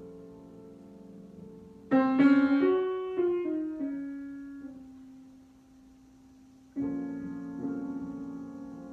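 Solo piano improvisation. A held chord dies away; about two seconds in a chord is struck and followed by a quick descending run of notes that settles on a long low note. Near the end a new chord is struck and held.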